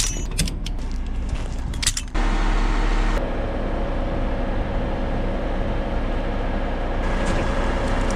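A few light metallic clinks over a low engine hum, then, about two seconds in, a Liebherr mobile crane's diesel engine running steadily and louder.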